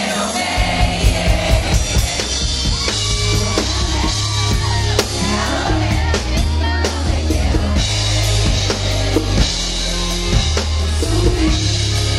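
Live band music: a male singer with bass and drums, the bass and drums coming in about half a second in.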